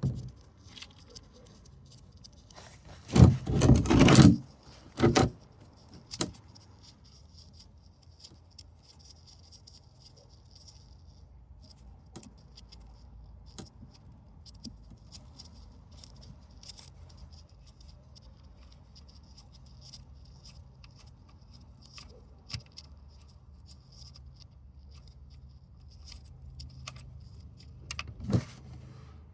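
Loose metal clinking and rattling, loudest in a few clattering bursts a few seconds in and again near the end, with faint scattered ticks and a low steady hum in between.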